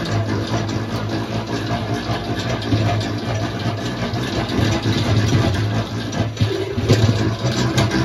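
Honey extractor spinning with a steady, low machine hum, mixed with light scraping and clicking from an uncapping fork working over capped honeycomb.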